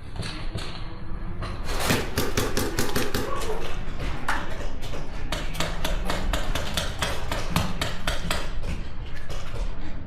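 Paintball markers firing in rapid strings of shots, several a second, starting about two seconds in. Wind rumbles on the microphone throughout.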